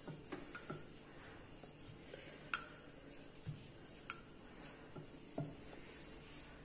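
Faint, scattered clicks and light knocks of a rolling pin working stuffed puri dough on a floured counter, the sharpest click about two and a half seconds in.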